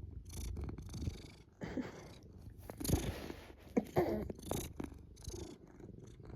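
Domestic cat purring close up, a steady low rumble, with a few soft rustles and clicks over it.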